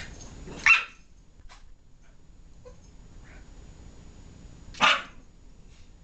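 Boston terrier giving two short, sharp barks, one about a second in and one near the end, while squabbling over a bone.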